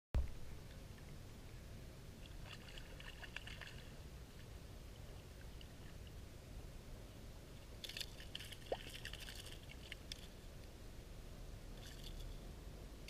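Water sloshing and splashing close to the microphone over a low steady rumble, with short bursts of splashing about two and a half, eight and twelve seconds in.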